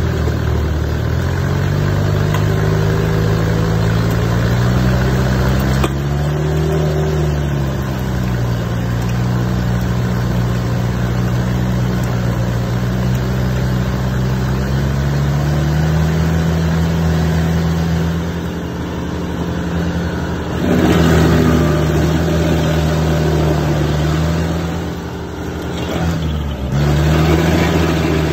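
Rayco RG100X stump grinder running hard while grinding an oak stump, its engine pitch sagging and recovering as the cutter wheel takes load. The grinding noise swells about three quarters of the way through, and near the end the engine briefly lugs down before picking back up.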